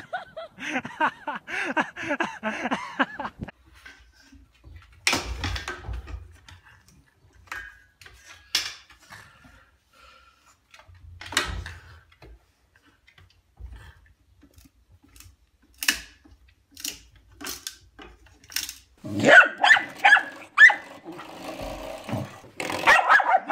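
A string of short animal-clip sounds: a pitched cry in the first few seconds, scattered knocks and clicks through the middle, then a dog barking and vocalizing over the last few seconds.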